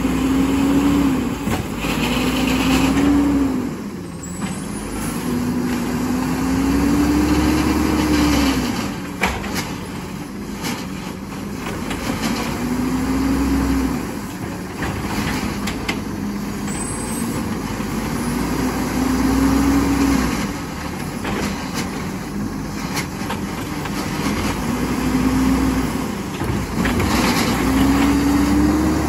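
Garbage truck's diesel engine revving up and dropping back again and again, about every three to six seconds, while the truck packs trash.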